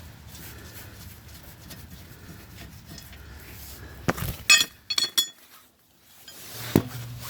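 Hand tools and bolts clinking against metal during exhaust manifold bracket removal: a quick run of sharp, ringing metallic clinks about four seconds in, then a single click near the end, over a low steady hum.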